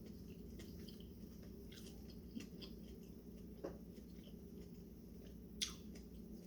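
Faint close-up chewing of food with small wet mouth clicks, one sharper click about two thirds of the way through, over a low steady hum.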